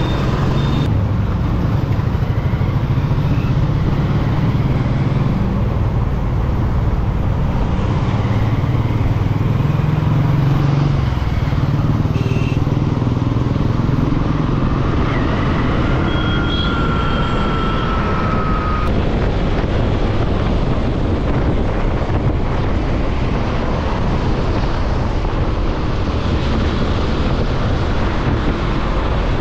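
Steady road traffic noise, with vehicle engines running, and a brief, slightly falling tone a little past the middle.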